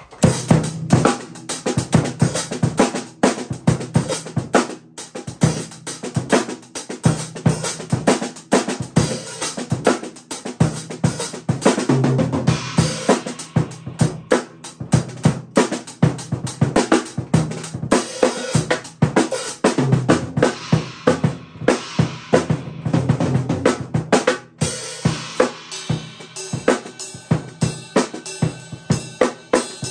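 Acoustic drum kit played with sticks in a continuous groove: bass drum, snare and hi-hat, with crash and ride cymbals. More cymbal ringing builds in the last few seconds.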